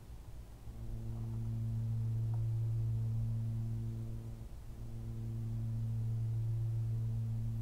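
A man humming a low, steady note while otherwise silent. He holds two long hums with a short break about four and a half seconds in.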